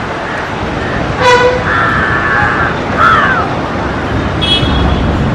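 A few short horn toots: a brief one a little over a second in, a longer one just after, and shorter ones around three and four and a half seconds, over a steady low rumble of traffic and engines.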